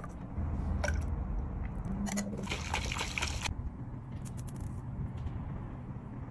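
Thick, creamy drink poured in a thin trickling stream, first into a metal cocktail shaker and then from the shaker into a glass mug, with a louder, hissier stretch of pouring about two and a half seconds in.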